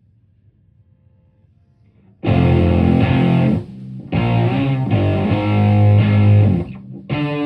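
Stratocaster played through a Univox Superfuzz fuzz pedal into a Marshall Plexi amp: a low hum for about two seconds, then loud, heavily fuzzed notes, broken by two short pauses.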